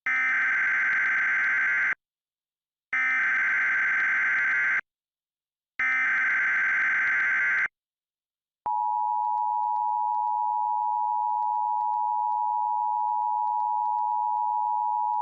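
Emergency Alert System opening tones: three bursts of screechy digital data tones (the SAME header), each about two seconds long with a second of silence between them, then the steady two-tone attention signal coming on about nine seconds in and holding.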